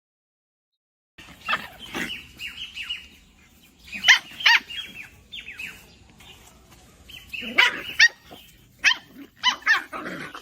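Puppy yipping and whimpering in short, high-pitched calls, coming in several bouts after about a second of silence.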